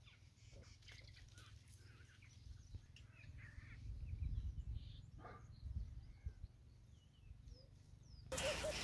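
Faint outdoor ambience with scattered short bird chirps and calls, and a low rumble swelling in the middle. Near the end the background turns abruptly louder.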